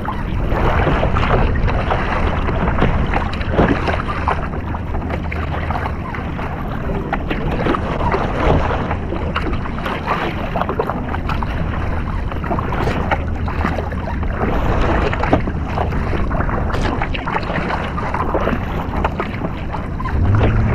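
Kayak moving through open water: water splashing and rushing along the hull in a steady run of small splashes, with wind rumbling on the microphone.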